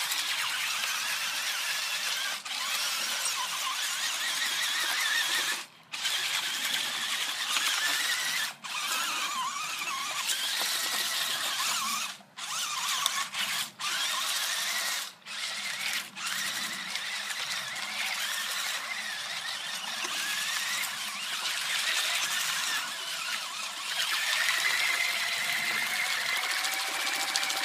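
Hot Wheels Terrain Twister RC toy's electric drive motors and gearboxes whining as its screw-shaped auger wheels churn through shallow water. The whine wavers in pitch, stops and restarts about seven times, and rises near the end.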